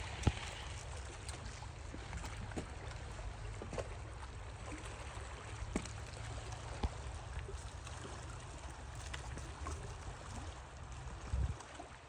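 Running stream water under a steady low wind rumble on the phone's microphone, with scattered small clicks and ticks.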